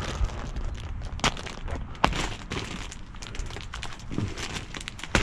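Gloved hands rummaging through dumpster trash: plastic bags and debris rustling and crinkling, with irregular clicks and a sharper knock about two seconds in.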